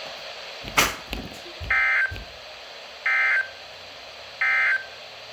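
Three identical short, buzzy digital data bursts about a second and a half apart: the Emergency Alert System's encoded data tones, sent right after the warning text ends as its end-of-message signal. A sharp thump comes just before the first burst and is the loudest sound.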